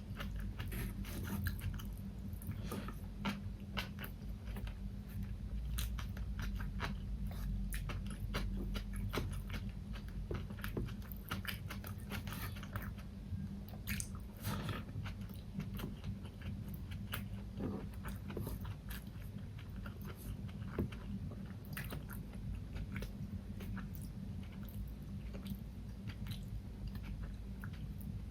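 Close-miked chewing and biting of food, with irregular crunches and clicks, over a steady low hum.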